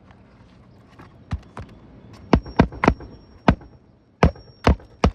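Hammer blows driving a roofing nail through a shingle by way of a metal tool, about nine sharp strikes. They come faster and louder from about two seconds in, and some leave a brief metallic ring.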